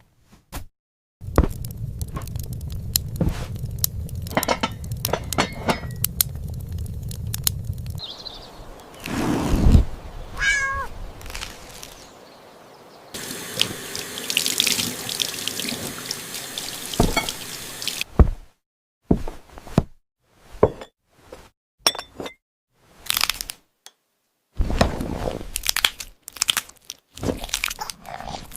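A string of separate short sound effects: a steady low rumble, then a cat meowing once about ten seconds in, then a few seconds of running water like a tap, followed by a series of short knocks and brief noises.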